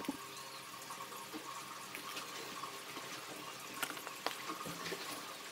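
A few faint clicks from a plastic bottle's screw cap being twisted, over a steady hiss.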